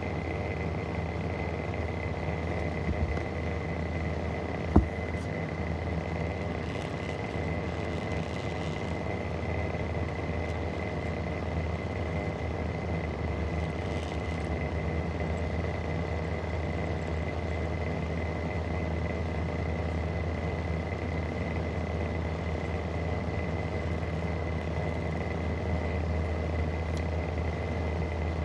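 Vintage Mistral exhaust fan running steadily: a low hum with a constant high whine over it, and one sharp click about five seconds in. Its bearings are very bad.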